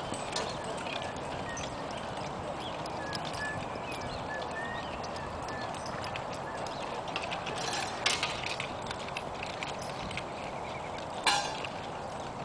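A Percheron draft horse and a second horse walking as a team on soft arena dirt: an irregular patter of muffled hoofbeats, with a sharper, louder knock or clink about eleven seconds in.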